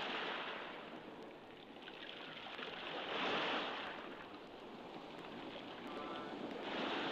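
Small waves washing in over a sandy beach at the water's edge, the wash of surf swelling and fading three times, about every three to four seconds.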